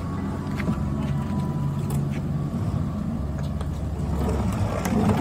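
A boat's engine running with a steady low drone, with a few short sharp knocks over it.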